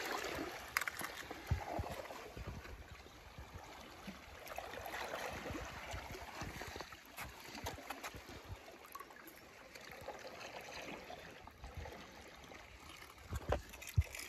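Shallow water sloshing and trickling as toy cars are handled in it, with scattered small splashes and knocks and a few louder knocks near the end.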